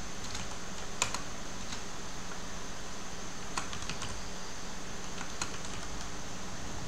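Computer keyboard being typed on: scattered, irregular key clicks, a few at a time, over a steady background hiss.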